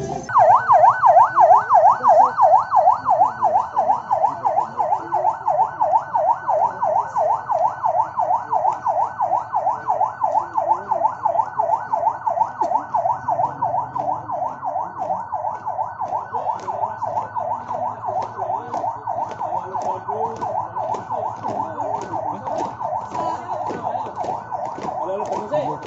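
Electronic siren yelping fast, its pitch sweeping up and down several times a second; it starts suddenly, and after the first few seconds the sweep narrows and the level eases a little.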